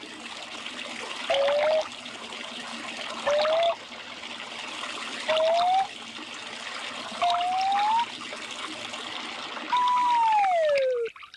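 Water poured into a cup in six short pours, the pitch of the filling cup rising during each pour and starting higher with each one. The last pour is longer and its tone slides down.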